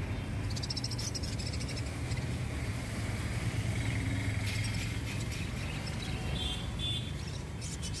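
High chirps of small caged birds several times over a steady low rumble of market background noise.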